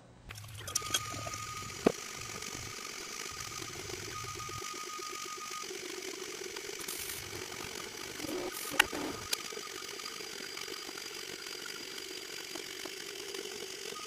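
Anet A8 3D printer printing, its stepper motors whirring steadily as the print head and bed shuttle, with a pitched whine that comes and goes. There is a sharp click about two seconds in and another about nine seconds in.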